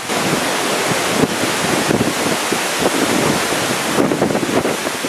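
Steady wind from the approaching Hurricane Sandy rushing through leafy trees, with wind buffeting the microphone.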